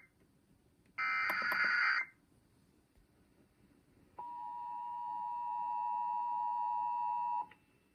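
Emergency Alert System signal: the last of three SAME header data bursts, a harsh warbling digital buzz about a second long, then after a pause the EAS two-tone attention signal (853 and 960 Hz) sounding steadily for about three seconds and cutting off, a short attention tone.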